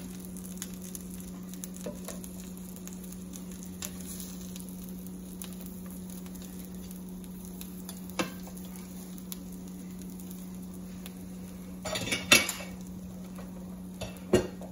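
A metal spatula scrapes and knocks against a stainless steel frying pan as the egg is folded and shaped. A few scattered clinks are heard, with the loudest clatter about twelve seconds in. Under this the egg sizzles faintly in the pan, over a steady low hum.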